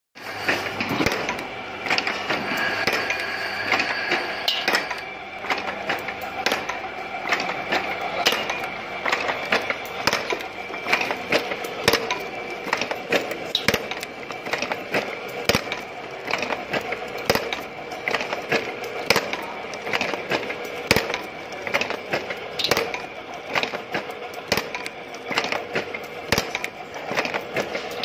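Automatic wire-forming machine bending steel wire into square belt buckles, running with a continuous rapid clatter of metal clicks and clacks over a steady hum.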